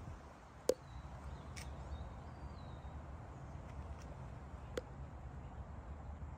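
Outdoor garden ambience: a steady low rumble, a few sharp clicks, the loudest about a second in, and faint high chirps in the first half.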